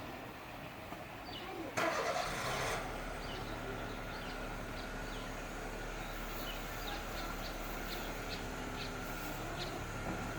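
An engine starts with a loud burst of noise about two seconds in, then keeps running with a steady low hum. Short high chirps sound over it.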